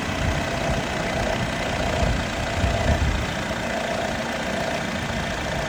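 2021 Jeep Wrangler's 2.0-litre turbocharged four-cylinder engine idling steadily while it warms up from a cold start.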